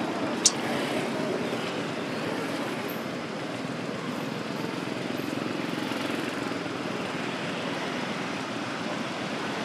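Steady outdoor background noise with one sharp click about half a second in.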